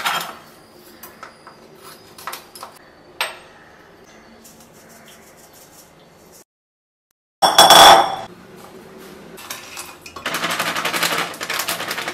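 Clinks and knocks of kitchen utensils against bowls, a metal sieve and a steel measuring cup. A short dead silence comes about six seconds in, then a loud clatter and, near the end, a stretch of rapid rattling.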